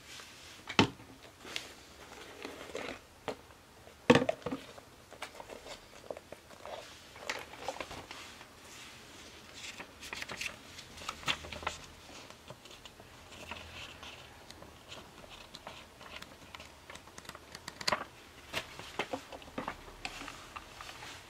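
Hands unpacking a tyre repair kit: crinkling plastic packaging, a paper leaflet rustling and irregular knocks as the parts are picked up and set down on a hard surface. The loudest knocks come about a second in and about four seconds in.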